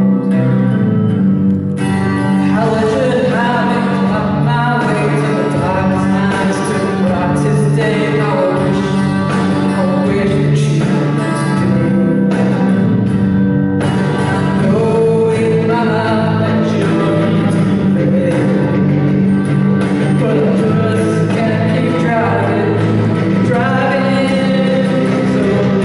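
A man singing a song to guitar accompaniment.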